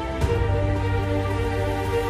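Background music with sustained, soft chords that change shortly after the start.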